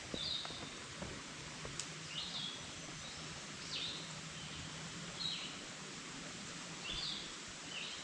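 A songbird calling repeatedly, short high chirps that step down in pitch about once a second, over a steady forest background hiss. Faint footsteps fade out in the first second.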